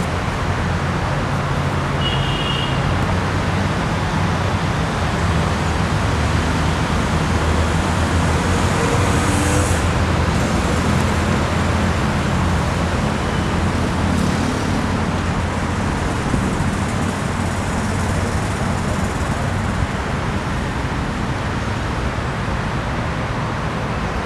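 Steady road traffic noise: a continuous low rumble with hiss above it.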